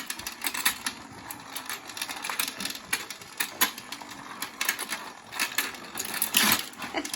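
Battery-powered toy fishing game running, its motor clattering with rapid, irregular clicks.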